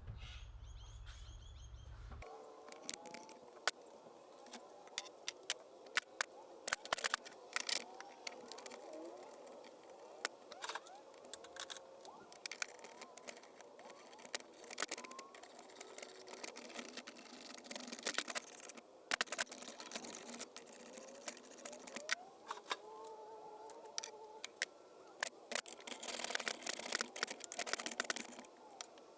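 Scattered metallic clicks and clinks of hand tools working on a car driveshaft, with birds chirping in the background.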